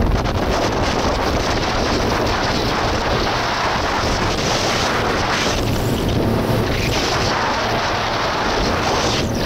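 Steady wind noise buffeting the microphone on a fast-moving motorboat, over the rush of water churned up in its wake.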